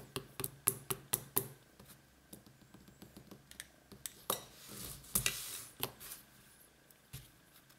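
Sharp clicks and taps of pens, a pencil and a plastic fidget spinner being handled and set down on a tabletop. They come in quick clusters at the start and again about four to six seconds in, with a short scraping rustle a little after five seconds.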